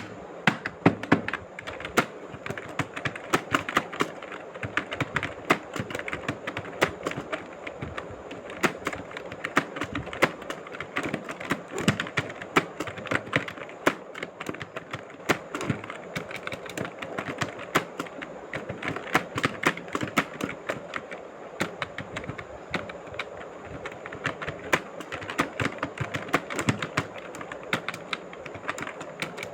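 Rapid, continuous typing on a keyboard, many sharp key clicks a second without a break, during a timed typing-speed test.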